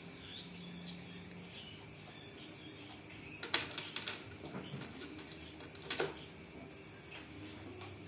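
Quiet handling noises at a bird cage: a few short clicks and knocks, the clearest about three and a half and six seconds in, over a faint steady hum.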